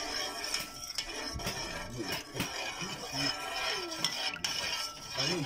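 A metal spoon stirring warm milk in a metal pot, clinking and scraping against the pot's sides and bottom in repeated small clicks.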